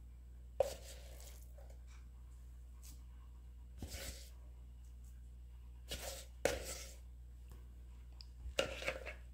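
Silicone spatula scraping firm ground poppy seed filling out of a plastic bowl and dabbing it onto rolled yeast dough: a few short, soft scrapes and taps with quiet between them.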